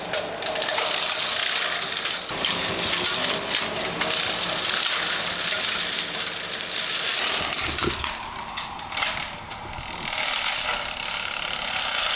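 Brush Wolf 42X hydraulic excavator brush cutter running and cutting through brush and saplings: a dense, steady mechanical noise with a droning tone underneath. The sound shifts about eight seconds in.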